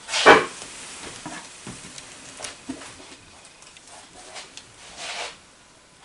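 Hands handling small objects on a wooden craft table: a sharp knock just after the start, scattered light clicks and rustles, and a short scraping rustle about five seconds in.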